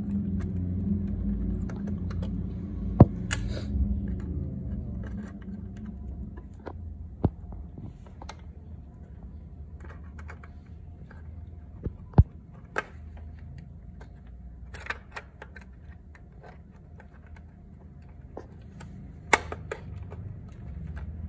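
Scattered sharp plastic clicks and handling noises as a headlight bulb and its socket are fitted and twisted into a motorcycle headlight housing, with the loudest clicks about 3 seconds and 12 seconds in.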